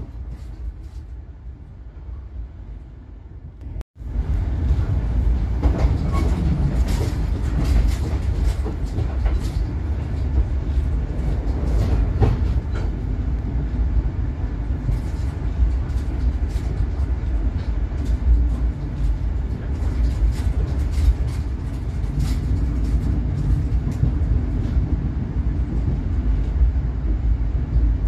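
Moving passenger train heard from inside the carriage: a steady low rumble with irregular clicks and knocks of the wheels over the track. It is quieter at first, then after a brief break about four seconds in it runs louder.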